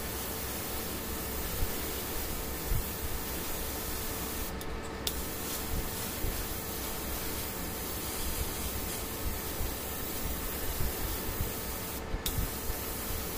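Airbrush spraying paint with a steady hiss of air that breaks off briefly twice, about four and a half seconds in and near the end.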